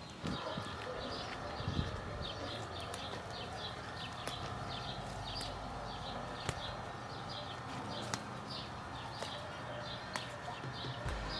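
A bird chirping repeatedly, short high chirps about two to three a second, with a few sharp clicks over a steady low background noise.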